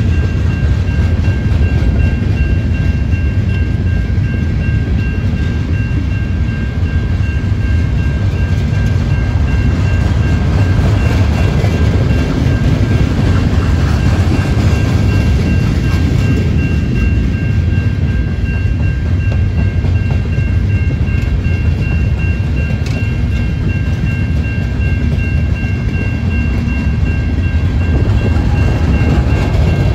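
Covered steel coil cars of a CN freight train rolling past: a steady low rumble of wheels on the rails, with a thin, steady high-pitched tone over it.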